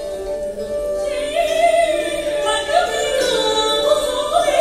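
Traditional Vietnamese theatre music: a woman's voice sings with bending, wavering pitch over a sustained instrumental line, the voice coming in about a second in.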